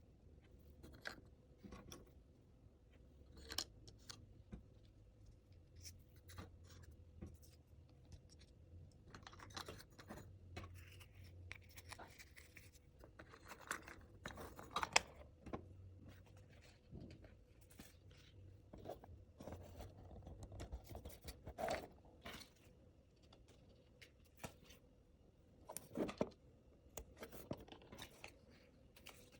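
Small plastic miniature toys and their packaging handled by hand: quiet, irregular clicks, taps and brief scratching and scraping sounds.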